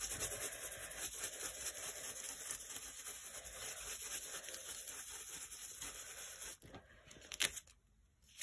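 Stencil brush scrubbing and dabbing acrylic paint through a stencil onto a glossy book page: a rapid dry rubbing that stops about six and a half seconds in, followed by a single click.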